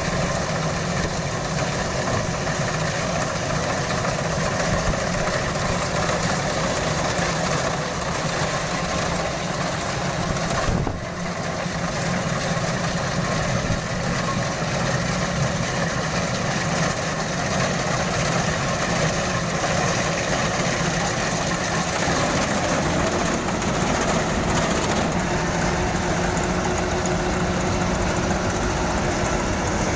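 Kubota DC-93 combine harvester's diesel engine and machinery running steadily at a constant pitch, with a brief dip about eleven seconds in.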